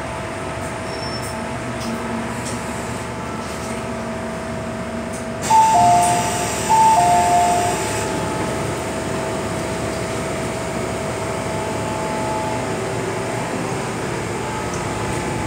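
Steady hum inside an MTR M-train car at a station stop. About five seconds in the doors open with a rush of noise, and the door chime sounds a high-then-low two-note ding-dong twice, the loudest sounds here.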